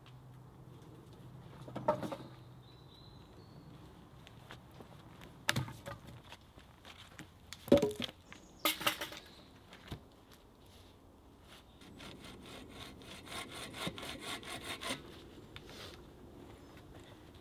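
Cut logs knocking as they are dropped and stacked on a log pile: several sharp wooden knocks, the loudest about eight seconds in. About twelve seconds in comes roughly three seconds of rough scraping of wood on wood.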